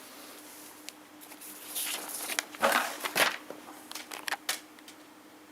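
Small plastic toys being handled: a string of clicks, knocks and scraping rustles, busiest just before the middle, over a faint steady hum.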